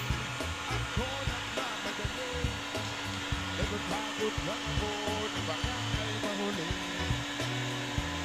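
Handheld LOTUS heat gun running steadily, a continuous blowing hiss as it heats the cable lug and insulation at a busbar terminal. Music plays underneath.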